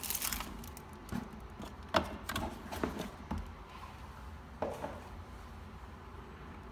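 Plastic sleeve rustling briefly as a small plastic camera is slid out of it, then several light clicks and knocks as the camera is handled and set down on a tabletop, the sharpest about two seconds in.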